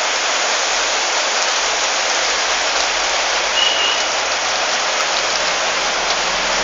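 Rain pouring steadily onto a wet street, an even hiss with no let-up.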